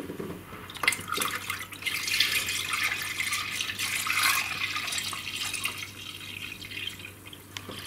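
Water pouring and splashing into a bucket, with a few sharp knocks and a faint steady low hum underneath.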